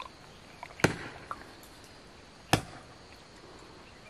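A man gulping water from a metal jug: two loud, sharp swallows, the first about a second in and the second about a second and a half later.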